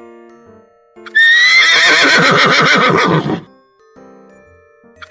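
A horse neighing: one whinny of about two seconds, quavering, its pitch rising briefly and then sinking, over quiet background music.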